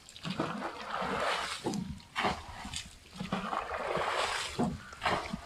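Water splashing repeatedly, in several separate surges of a second or so each.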